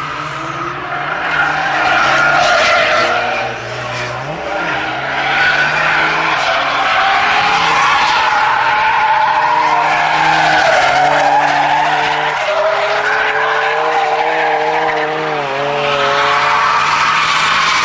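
Cars drifting: engines revving up and down, with a long, continuous tyre squeal from the sliding rear tyres.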